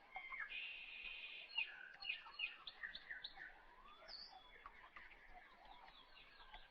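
Faint birdsong: several birds chirping, with quick rising and falling notes and a buzzy trill about half a second in.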